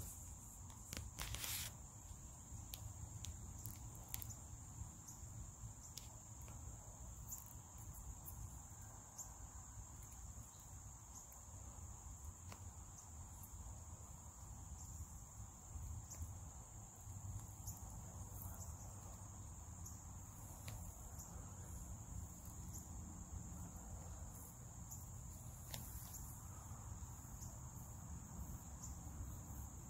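A steady, high-pitched chorus of insects, with a low rumble on the microphone and scattered faint clicks.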